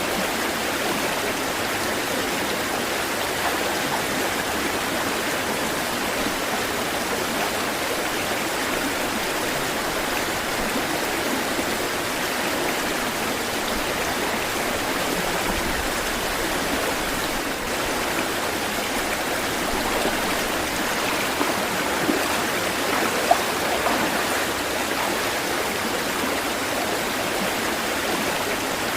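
Flowing water rushing steadily, like a stream or small waterfall, with no rise and fall of waves. A few brief sharper sounds stand out about two-thirds of the way through.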